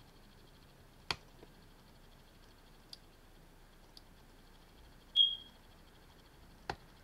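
Computer mouse clicking while a slider is worked: a few sharp single clicks spaced seconds apart, over a faint steady high whine. About five seconds in there is a brief high-pitched chirp, the loudest sound.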